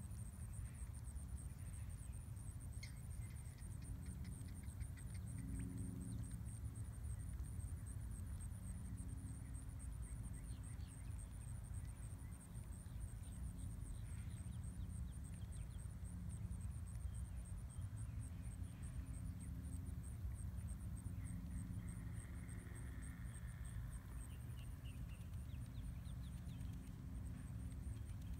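Faint outdoor ambience: a steady, high-pitched insect trill pulsing rapidly without a break, over a constant low rumble, with a few faint short chirps here and there. The cranes are not calling.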